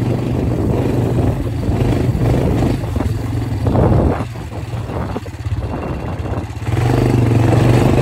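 Quad (ATV) engine running as the machine is ridden over rough ground, with rattling and a dip in engine level in the middle. The engine pulls louder and steadier again from about seven seconds in.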